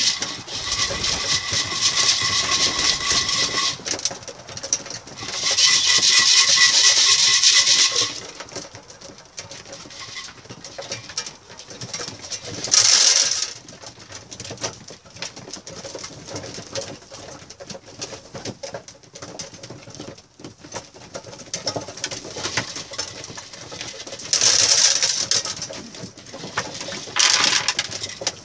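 Homing pigeons cooing in a small loft, broken by several loud rustling bursts, the longest in the first eight seconds.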